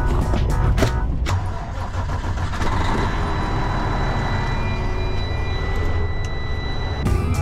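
Background music for about the first second, then a click, then a semi-truck's diesel engine running low and steady inside the cab, with faint steady high-pitched tones over it. Music comes back near the end.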